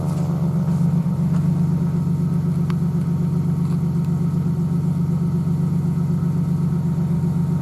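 Vehicle engine idling steadily. In the first half-second the tail of a Federal Q2B siren's wind-down fades out, its pitch still falling.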